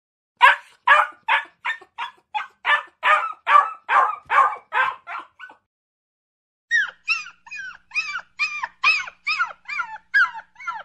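Puppy whining and yelping in short repeated cries, about two or three a second, as it tries to climb out of a ditch. After a pause of about a second near the middle, a second run of cries follows, each falling in pitch.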